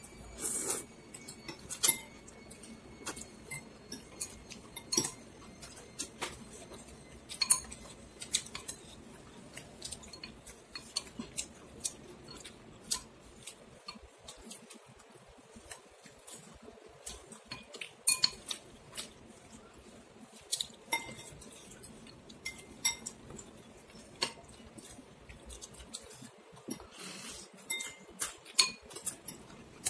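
A soup spoon and chopsticks clinking and tapping against a ceramic bowl of noodle soup while eating, in irregular light clinks, some ringing briefly.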